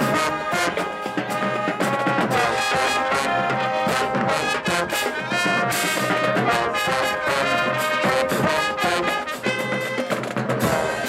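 HBCU marching band playing, its brass section sounding held notes over a steady drum beat.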